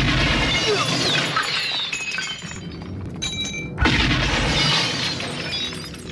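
Glass shattering with shards tinkling, in two loud crashes: one at the start lasting about two seconds, and another that breaks in suddenly about four seconds in. Film score music plays underneath.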